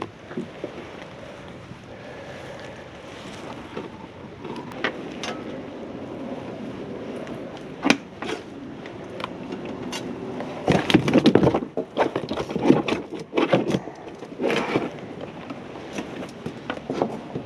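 Clicks, knocks and rattles from unhooking and handling a freshly caught sheepshead and tackle on a small boat, busiest and loudest about two thirds of the way through, over steady wind noise on the microphone.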